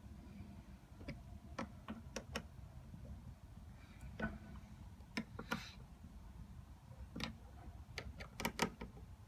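Irregular clicks and taps of a screwdriver working screws into a plastic doorbell mounting plate on the wall, with quick clusters of clicks about halfway and near the end.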